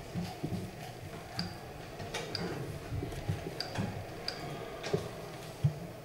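Wooden chess pieces clacking down on a wooden board in quick, irregular succession as moves and captures are made in a blitz game, with one sharper knock near the end.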